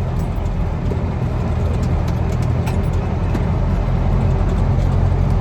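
Heavy truck's diesel engine running steadily under way, heard from inside the cab as a low drone that grows a little louder about four seconds in, with faint light rattles.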